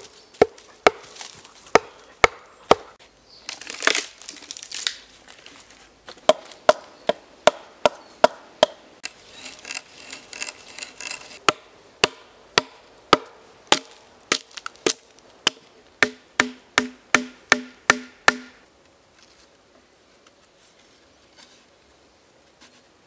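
Axe work on a log: an axe head driven into the log with a wooden club to split it, and axe strokes hewing the wood, heard as a long series of sharp wooden knocks, roughly two a second. Near the end a quicker run of about eight blows rings with a hollow tone, then the knocking stops.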